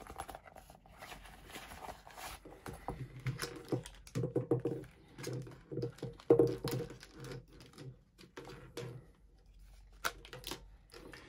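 Handling noise as a clamp meter and its test leads are unpacked from a soft case: irregular light clicks, taps and rustles of plastic and cable, with the small snaps of caps being pulled off the probe tips.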